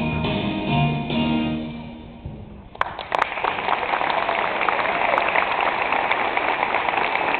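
Music with sustained notes fades out about two and a half seconds in. A couple of sharp clicks follow, then an audience applauding steadily.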